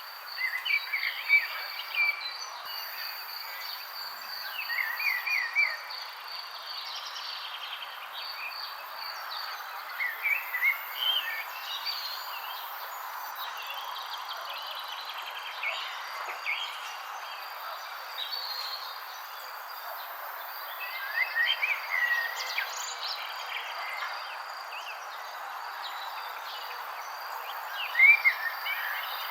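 Wild birds chirping in short clusters of quick calls, five or six times, over a steady high-pitched pulsing trill and a constant background hiss.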